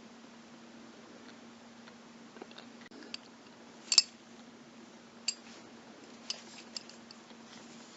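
A metal belt buckle being handled and turned over: scattered small clicks and taps, the sharpest about four seconds in, over a steady low hum.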